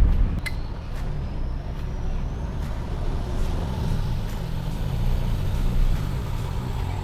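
Four-wheel-drive vehicle driving slowly off-road: a steady low engine and drivetrain rumble, with a couple of light knocks about half a second and a second in.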